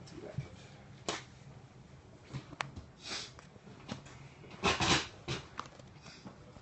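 Scattered clicks, knocks and clatter of brewing gear being handled and set down on a stainless steel counter, with the loudest, longer clatter a little before five seconds in.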